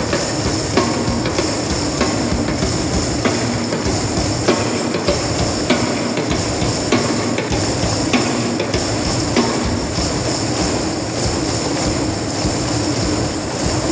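A large crowd playing hand drums and tambourines together, a dense continuous rumble of drum strikes with jingles on top.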